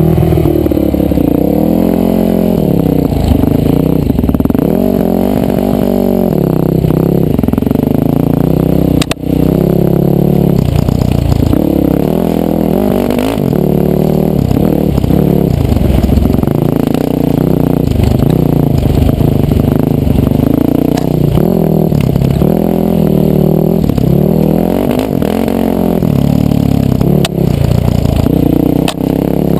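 Yamaha dirt bike engine heard close up as it is ridden, its pitch rising and falling over and over as the throttle opens and closes. There is one sharp knock about nine seconds in.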